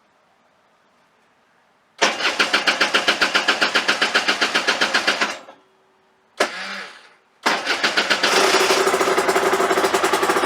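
Freshly rebuilt two-stroke 125cc engine of an Aprilia RS 125 being started for the first time after a top-end rebuild. It turns over with rapid pulses for about three seconds and stops, gives a short burst, then catches about seven and a half seconds in and keeps running at a steady pitch.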